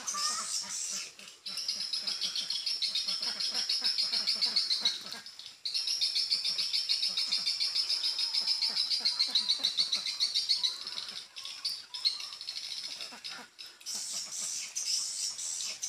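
Swiftlet call sound played from a swiftlet house's speakers: long runs of rapid, buzzy twittering chirps, broken by brief pauses about one and a half and five and a half seconds in.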